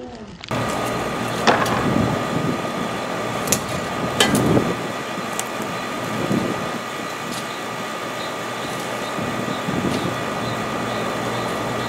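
A steady machine whir with a constant high whine over it, with a few soft thuds and clicks on top.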